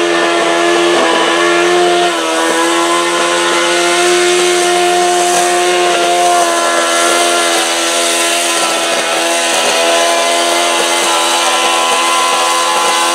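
Modified garden pulling tractor's engine held at full throttle under heavy load through a pull, running loud at a high, nearly steady pitch with brief small dips.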